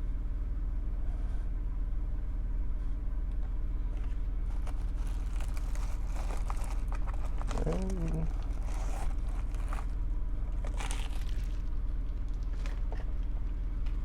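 Bubble-wrap mailer and packaging being handled: scattered crinkling and rustling with a few short scrapes, busiest in the middle, over a steady low hum.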